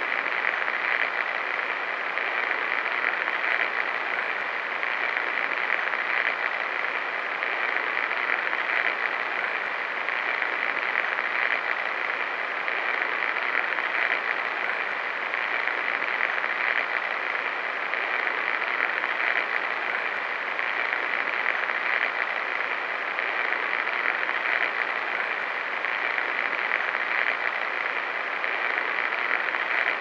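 Steady hiss of television static, even and unchanging throughout.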